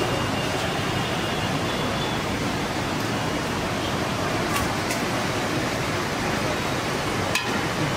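Steady, even rushing noise of street ambience at a food stall, with a few faint clicks about halfway through and again near the end.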